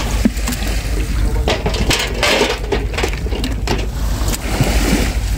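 Blue crabs and fish being handled in a cooler of water: clattering shells and water moving in bursts, loudest about halfway through. A steady low wind rumble on the microphone runs underneath.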